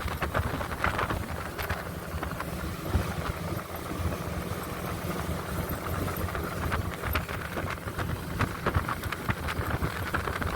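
Motorboat engine running steadily under way, with wind buffeting the microphone and scattered knocks.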